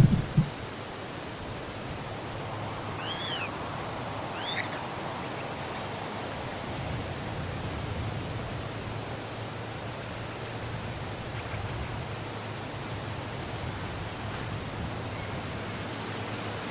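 Two short, high, arching chirps from nestling birds, about three seconds and four and a half seconds in, over a steady hiss. Two sharp thumps right at the start are the loudest sounds.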